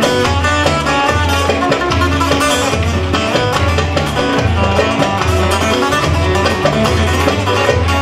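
Live Turkish folk ensemble playing an instrumental passage: a plucked bağlama (saz) melody over darbuka and keyboard, with a steady low beat.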